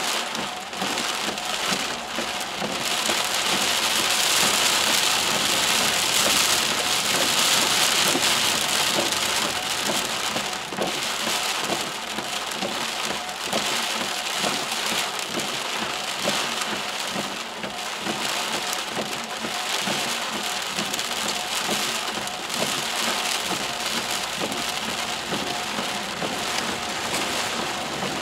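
Torrential rain pelting a car's roof and windshield, heard from inside the moving car as a dense, continuous patter. It is heaviest a few seconds in, then eases slightly.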